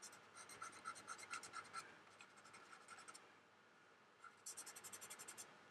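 Faint, quick back-and-forth rubbing of a fingertip on the painted plastic wing of a scale model kit, working a dark brown weathering colour into a red decal to fade it. It comes in two spells of strokes, about four a second, with a short pause between them.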